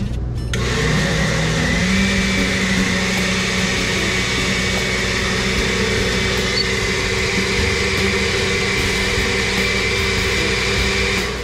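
Vehicle engine and road noise: the engine's pitch rises over the first couple of seconds, then holds steady.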